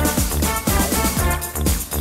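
Instrumental passage of a 1989 Belgian electronic dance track: a steady kick drum about twice a second under synth chords and hi-hats, with no vocals.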